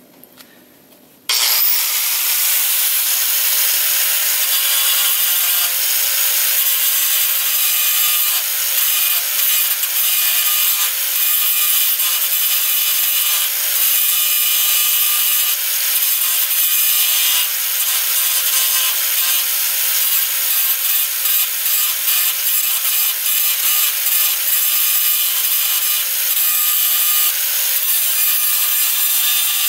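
Electric angle grinder switched on about a second in and grinding steadily through the welds holding a truck's steel radiator support, a continuous high, gritty whine of disc on metal. In the second half the level flickers as the disc bites and eases off the steel.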